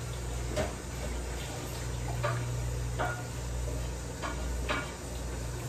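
Light clinks and knocks of kitchen utensils and containers being handled, a few scattered taps, over a steady low hum.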